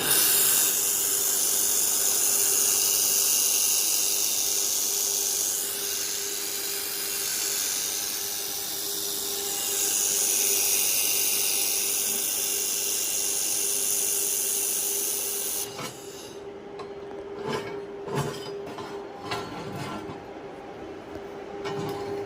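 A 1500 W Lightweld handheld laser welder runs a wire-fed weld on 3 mm stainless steel, giving a loud, steady hiss that cuts off suddenly about two-thirds of the way through. After it come scattered knocks and clicks. A steady hum from the welder's cooling fans runs underneath.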